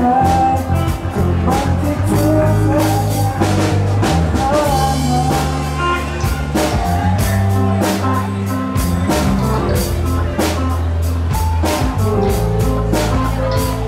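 Live rock band playing: electric guitars and bass over a drum kit keeping a steady beat, with keyboard.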